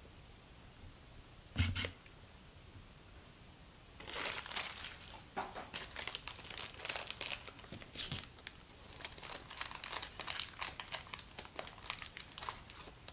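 Thin plastic blind bag being crinkled and torn open by hand: a dense, irregular crackling that starts about four seconds in and grows busier toward the end. A single short low thump comes about two seconds in.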